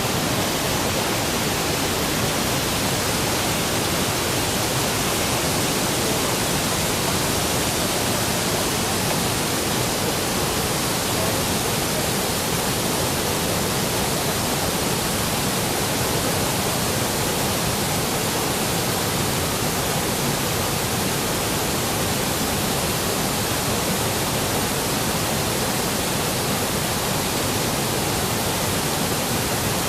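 Large waterfall in high flow, swollen by recent heavy rain, giving a loud, steady, unbroken rush of falling water.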